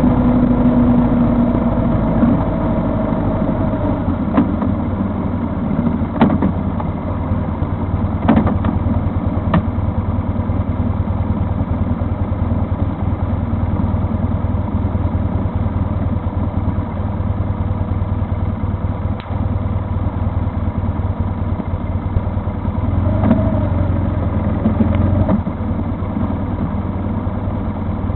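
Vehicle engine running steadily on the move, with a few short sharp knocks here and there.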